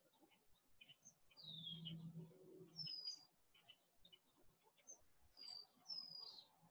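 Faint songbirds chirping, with several short, high whistled notes that slide downward, repeated a few times. A faint low hum runs briefly about a second and a half in.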